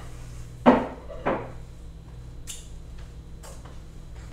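Two sharp knocks about half a second apart, the first the louder, followed by two faint clicks.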